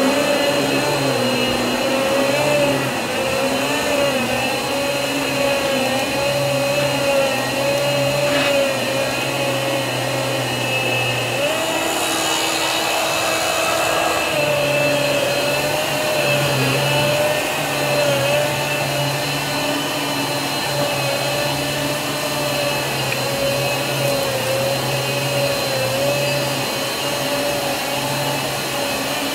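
Riccar Pizzazz canister vacuum running with its electric power head on carpet: a steady motor drone with a kind of whiny tone that wavers slightly. The pitch steps up for a few seconds about twelve seconds in, then settles back.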